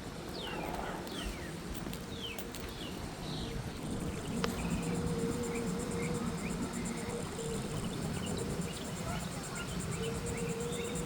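Wind noise on the microphone, with a steady high insect trill pulsing evenly and scattered short, falling bird chirps.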